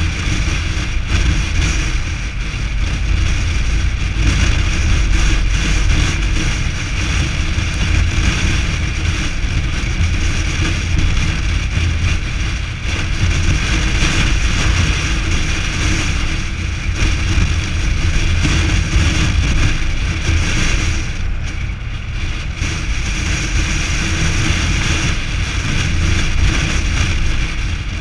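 Car driving at a steady pace, heard from a camera mounted on the outside of its body: steady tyre and wind noise with a heavy low rumble.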